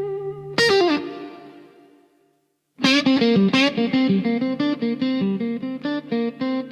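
Guitar intro of a country song: a held, bent note rings and fades away to silence, then a steady picked pattern of notes starts about three seconds in.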